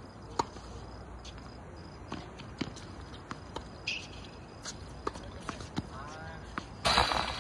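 Tennis balls struck by rackets during a doubles point on a hard court: sharp pops spaced a second or so apart, the loudest about half a second in, with shoe steps between them. A loud rushing noise breaks in near the end.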